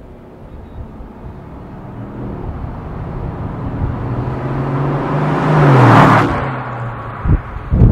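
Mercedes-Benz W216 CL500 Bi-Turbo's twin-turbo V8 through a MEC Design aftermarket exhaust in its 'Earthquake' sound version, driving past at normal speed. The engine note grows louder as the car approaches, drops in pitch as it passes close by about six seconds in, then cuts off. Two short low thumps come near the end.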